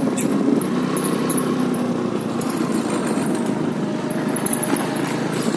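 Motorcycle engine running steadily as the bike rides slowly along.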